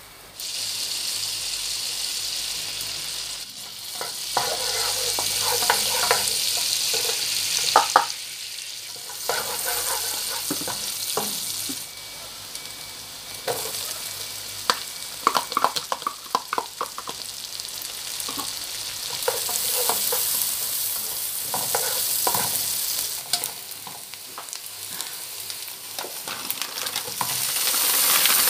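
Butter and then chopped onion sizzling in a hot non-stick wok, with a plastic spatula clicking and scraping against the pan as it stirs. The sizzle grows louder near the end as mixed vegetables are poured in.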